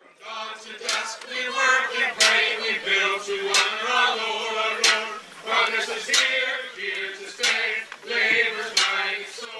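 A group of voices singing, men's voices to the fore, over a steady held low note.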